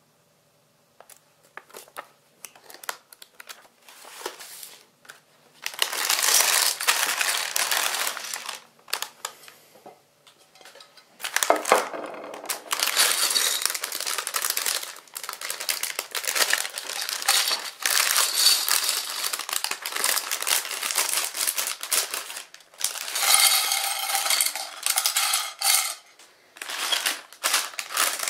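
Thin plastic parts bags crinkling as they are handled and torn open, with small plastic building bricks clicking and clattering onto a china plate. It comes in long crackly stretches with short pauses between.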